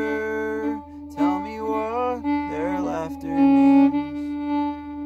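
Fiddle playing an instrumental break: a bowed melody with slides over a steady drone note. The melody stops about four seconds in, leaving long held notes.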